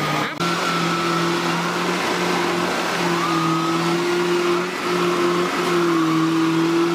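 Kubota DC-70G rice combine harvester's diesel engine running steadily under load, a constant hum with slight shifts in pitch and a brief break near the start.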